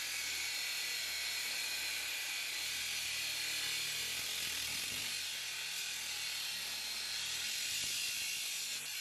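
Ryobi R18AG 18 V cordless angle grinder, a 7,500 rpm model fitted with a 115 mm cut-off disc, cutting through thin-walled 20x20 mm steel square tubing. The disc grinding into the metal gives a steady high hiss with a motor whir underneath, unbroken throughout.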